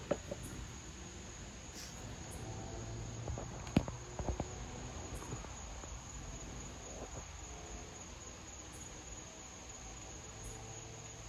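Crickets trilling steadily, one constant high-pitched tone, with a few sharp clicks about four seconds in.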